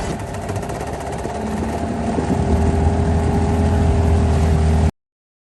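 Motorboat engine running, with a steady low drone that grows stronger about halfway through; it cuts off abruptly near the end.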